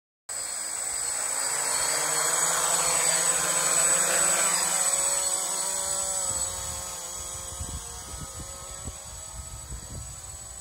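Quadcopter drone's motors and propellers whirring as it lifts off and flies away. The hum grows louder for the first few seconds, drops in pitch, then fades as the drone moves off. Low thumps from the second half on.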